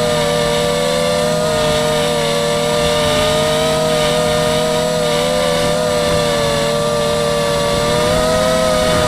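Mini FPV quadcopter's motors and propellers whining steadily: several close pitches drift up and down together as the throttle shifts.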